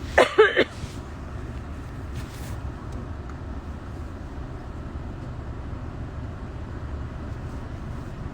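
Steady low rumble of a running vehicle heard from inside the cabin. A short, loud pitched sound with a wavering pitch, like a brief cry or squeal, comes right at the start.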